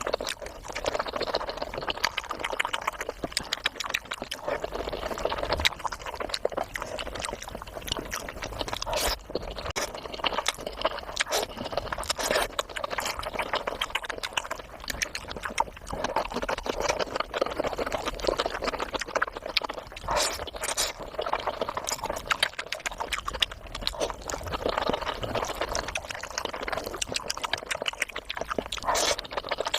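A person eating close to the microphone: steady chewing with a dense run of small clicks and mouth smacks.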